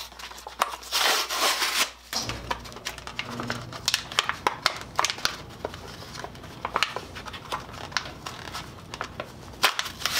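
Crinkling and crackling of a plastic blister pack and its card backing being pulled and torn open to free a dual-syringe 5-minute epoxy, with many small clicks and a louder stretch of rustling about a second in.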